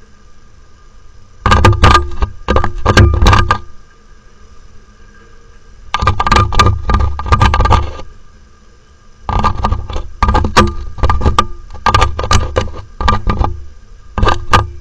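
Peregrine falcon pecking and striking a security camera's housing close to its microphone: repeated bouts of sharp taps and knocks with low thuds, each bout lasting one to two seconds, with short pauses between.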